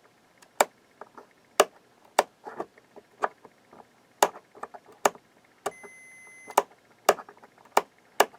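A faulty amplifier power switch being clicked on and off repeatedly, about one to two sharp clicks a second, while a multimeter on continuity test sounds a single short beep a little under a second long, about six seconds in. The switch only occasionally makes contact; most of the time the meter stays silent.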